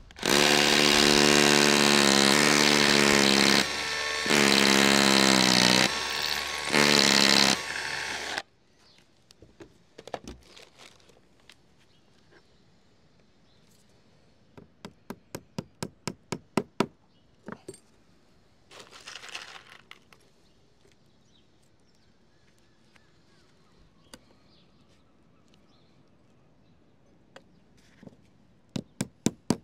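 A power tool's motor runs loudly in bursts for about eight seconds, slowing and picking up again a few times before cutting off. After a lull comes a run of sharp taps at about three a second, and more taps near the end.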